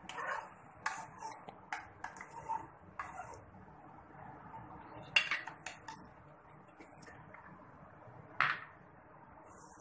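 A spoon clinking and scraping against a steel pan as rose petals are stirred into cooking sugar syrup, in irregular knocks, the loudest about five seconds in and another near the end.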